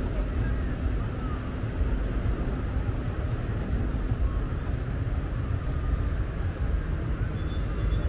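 Steady low rumble of outdoor ambience at an even level, with no single event standing out.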